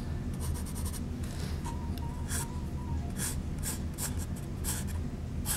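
Pencil scratching on the side of a paper cup in a series of short, uneven strokes as a square outline is sketched, over a steady low hum.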